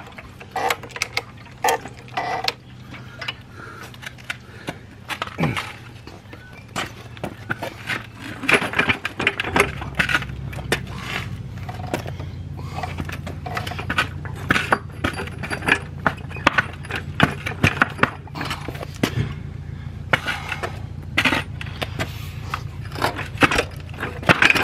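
Irregular metal clicks, clinks and knocks of hand work on a motorcycle's rear suspension and its lifting gear. A steady low hum joins in about nine and a half seconds in.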